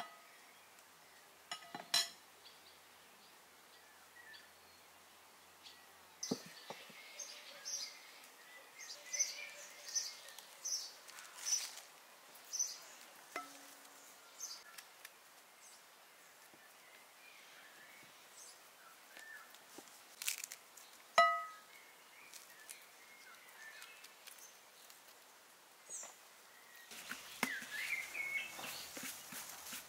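Scattered light knocks and clicks of kitchen utensils being handled, with two ringing clinks of a dish, one about two seconds in and a louder one about twenty-one seconds in. Birds chirp outside in between, and a busier rustle and clatter of handling comes near the end.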